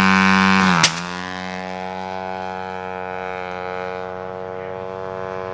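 Small propeller-driven target drone's engine running steadily on its launcher, then a sharp crack about a second in as it is fired off the catapult rail; the engine note then drops slightly in pitch and slowly fades as the drone flies away.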